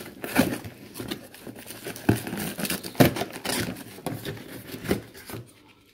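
Hands rummaging in a cardboard box: cardboard and plastic-bagged parts rustling, with irregular taps and knocks, the sharpest about three seconds in.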